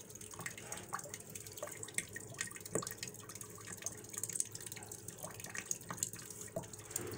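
Water falling through a small popsicle-stick water wheel and splashing into a plastic tub, a steady trickle with irregular drips and small splashes.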